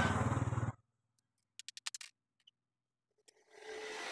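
A small electric motor whirring with a low hum cuts off suddenly under a second in. A few light clicks follow, then a short rushing whirr near the end.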